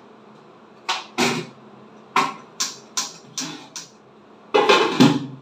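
A metal cooking pot and its lid clinking as the lid is opened on a cake baking in the pot. There are several sharp clinks about a second in and through the middle, then a louder clatter near the end.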